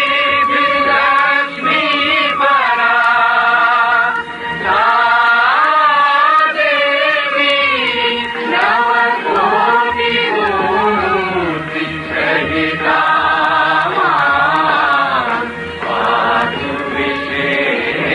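Devotional chanted singing with music, the voices gliding and wavering through ornamented notes over a steady drone.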